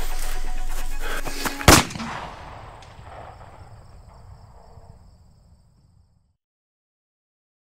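A single pistol shot, sharp and loud, cuts off a loud sustained sound a little under two seconds in. Its echo dies away over about four seconds, with a faint high ringing tone in the tail.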